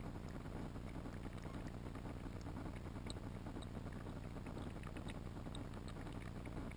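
Steady muffled rumble and hiss picked up underwater by a GoPro sealed in its waterproof housing, with scattered faint ticks.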